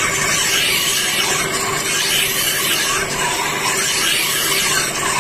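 Steel hedge-shear blade ground against a rotating sharpening stone wheel: a steady scraping hiss as the edge is sharpened, with the wheel's motor humming underneath.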